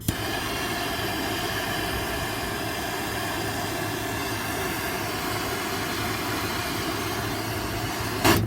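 Handheld gas torch burning with a steady hiss, heating an awl red hot so it can be pushed through carpet; the sound stops abruptly near the end.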